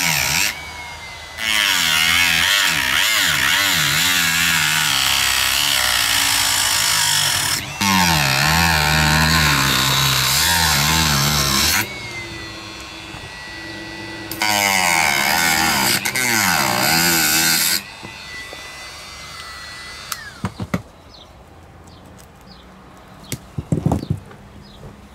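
Dremel rotary tool with a small cut-off disc grinding through the body of a round plastic gas lighter to get at its filler valve: three long stretches of loud cutting, with a steady high whine in the gaps between them. The tool stops about 20 seconds in, followed by a few small clicks as the lighter is handled.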